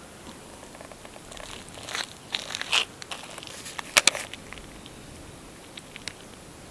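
Cat crunching dry food in short bursts of bites, with the sharpest crunches about two seconds in and again about four seconds in.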